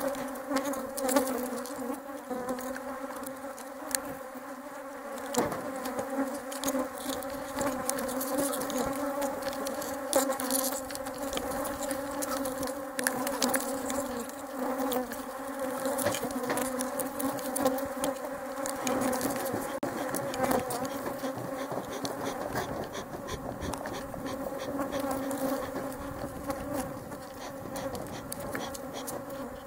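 Honeybees buzzing in numbers close around the microphone at the hives: a steady, low hum with scattered short ticks.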